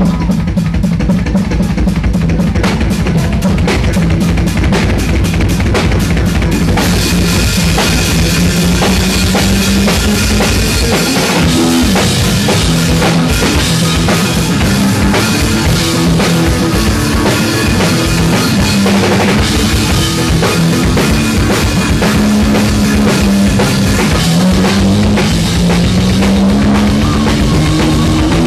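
Live bass and drum jam: a bass plays moving low lines over a fast, busy groove on a small drum kit of kick drum, snare, hi-hat and crash ride. A cymbal wash comes in about seven seconds in.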